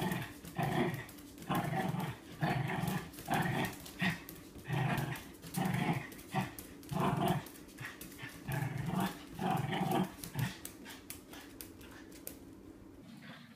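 Small dog growling in short, rapid bursts, about two a second, as it spins chasing its tail. The growls stop about ten seconds in.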